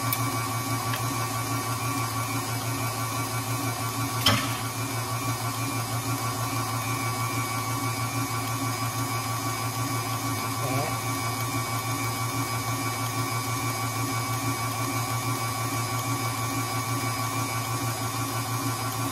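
KitchenAid Artisan stand mixer running steadily, its wire whisk beating cake batter in a stainless steel bowl. A single knock sounds about four seconds in.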